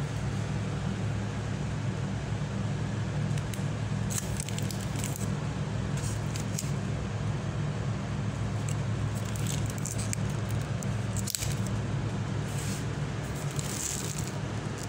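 A steady low hum with bursts of rustling and crackling several times, like plastic grocery bags being handled.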